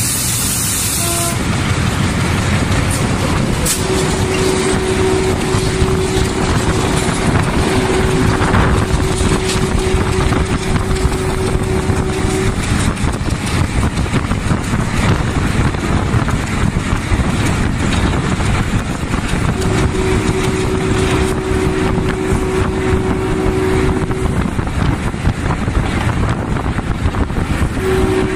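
Sri Lanka Railways M8 diesel locomotive running at speed, heard from alongside its hood. The steady rush of engine, wheels on rail and wind is loud and dense. A steady tone sounds for several seconds at a time, three times.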